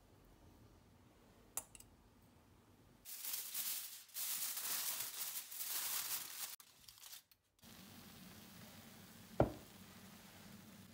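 Aluminium foil crinkling as it is handled and pressed over a glass baking dish, for about four seconds. A light click comes before it, and a single sharp knock comes near the end.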